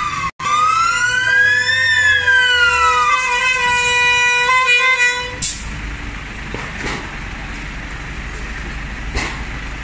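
Fire engine siren wailing, its pitch rising and falling slowly over a steady horn-like tone. Both stop about five seconds in, leaving a low engine rumble.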